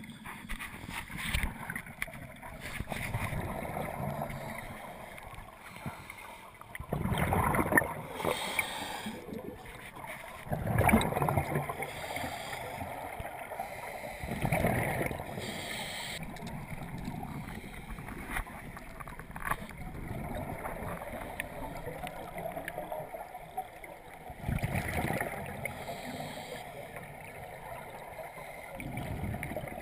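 Scuba regulator breathing underwater: rushing bursts of exhaled bubbles every few seconds, over a steady watery hiss.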